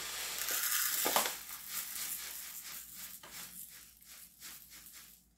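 Epsom salt crystals poured from a bag into a half-cup measure: a steady hiss of pouring salt for about the first second, then smaller rattling trickles and shakes that fade out near the end.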